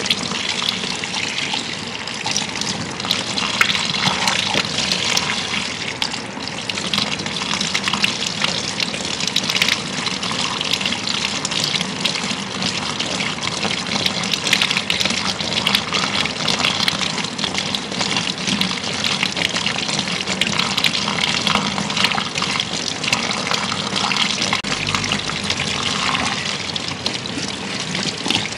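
Handheld shower head spraying water onto wet hair and splashing into a shampoo basin, a steady running hiss with small crackles.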